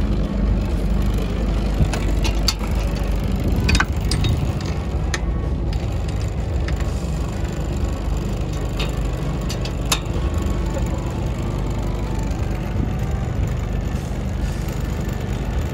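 A small fishing boat's engine running steadily, with a few sharp clicks and knocks from gear on deck being handled in the first ten seconds or so.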